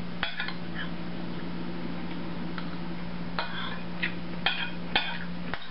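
Cutlery clinking against a plate, several light separate clinks, over a steady low hum.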